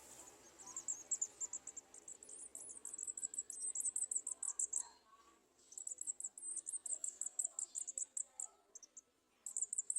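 Garden sunbirds giving fast runs of thin, high chirps, many a second, with short pauses about five and nine seconds in.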